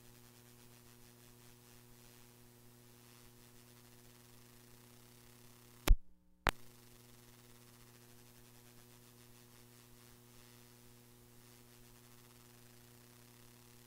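Faint steady electrical mains hum and hiss from the meeting's audio system, with no speech carried. About six seconds in, two loud clicks half a second apart, with the feed dead silent between them: a glitch in a faulty audio feed.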